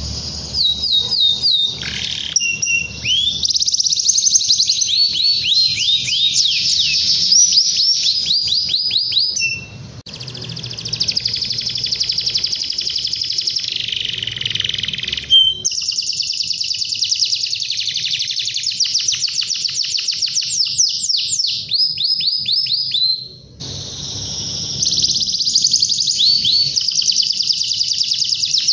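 Domestic canary singing in long, high, near-continuous phrases of fast trills and rolls of rapidly repeated notes, with short breaks about ten, fifteen and twenty-three seconds in.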